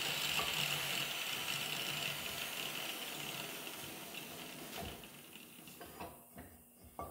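Angle grinder that has just cut through a steel pipe, running down, its steady sound fading away over about six seconds. A few light metal knocks follow near the end.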